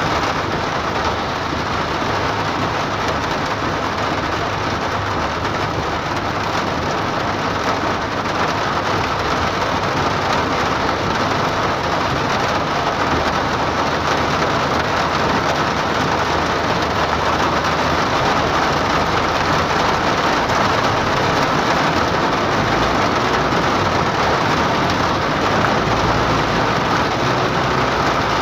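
Heavy rain beating on a car's roof and windscreen, heard from inside the moving car as a steady, dense hiss, with the car's tyre and road noise beneath it.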